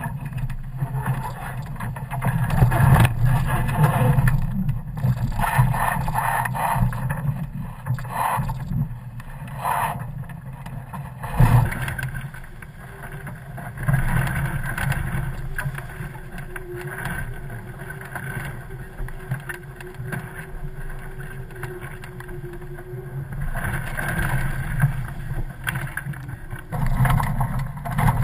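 Wind rushing and buffeting past the masthead of a sailing catamaran under way, with water noise from the hulls. It makes an uneven low rumble that swells and fades with the gusts. A faint steady tone runs for about ten seconds in the middle.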